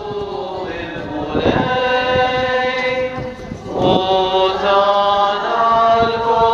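A crowd singing a slow hymn together in unison, with long held notes.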